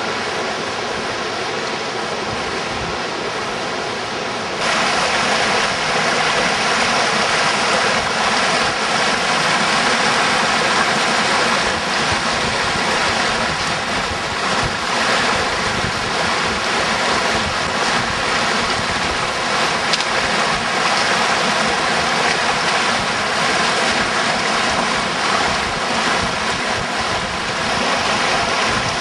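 Rushing water of a rocky mountain stream, a steady hiss that jumps suddenly louder and brighter about four and a half seconds in.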